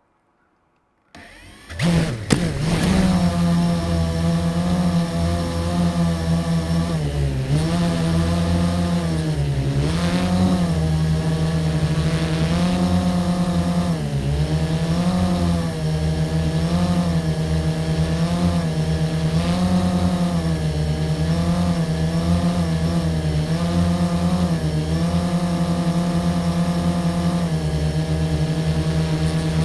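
An engine running steadily after starting up about a second in, its pitch wavering slightly up and down in a rough rhythm.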